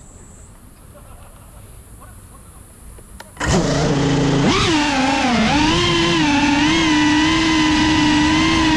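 Cinelog35 FPV cinewhoop quadcopter on a 6S battery: about three seconds in, its motors spin up suddenly and it lifts off. After that comes a loud, buzzing motor whine that steps up in pitch, then wavers up and down with the throttle as it flies.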